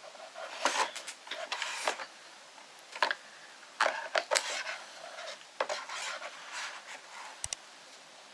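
Hands handling a Google Nest Mini and its packaging: irregular rubbing and rustling with light clacks of plastic and cardboard.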